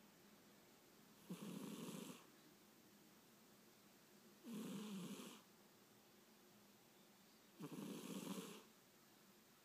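Sleeping domestic cat snoring: three snores about three seconds apart, each lasting about a second.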